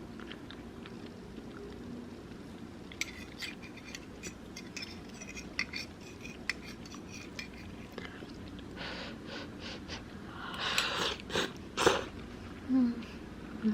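Someone eating a meal: chewing, with light clicks of utensils against a dish, and a few louder, noisier bursts in the last few seconds.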